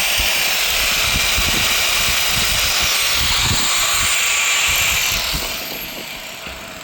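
A power tool running steadily with a high hiss, then dying down about five seconds in.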